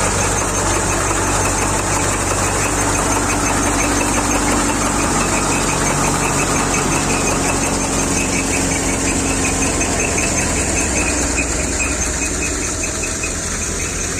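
Wheat thresher running at work, driven by its tractor: a loud, steady, dense mechanical noise of the engine and the threshing drum, easing slightly near the end.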